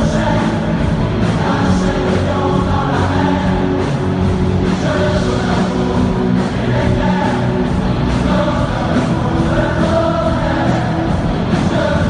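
Live rock music from a massed band of hundreds of musicians: many drum kits playing together, with a large group of voices singing the melody over the band.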